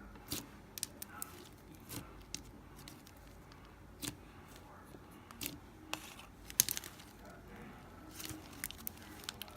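Slime being squished and poked by hand: irregular sticky clicks and small pops, a few every second, the sharpest about two thirds of the way in.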